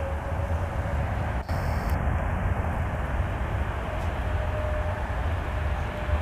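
Jet airliner's engines running as it rolls along the runway: a steady rumble with a faint thin whine over it.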